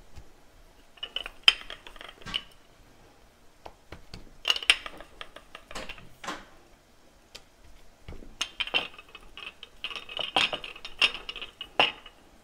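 Rolling pin clicking and knocking against the work surface while a piece of layered dough is rolled out, in three bursts of strokes.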